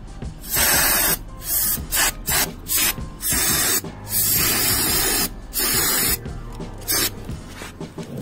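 Aerosol can of brake cleaner spraying onto a motorcycle's front brake rotor and caliper in about eight hissing bursts, some short and a few lasting about a second, to clean grime off the brake.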